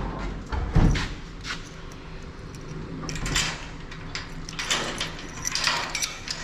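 A door being opened, with a knock about a second in, followed by several scuffing and rustling sounds.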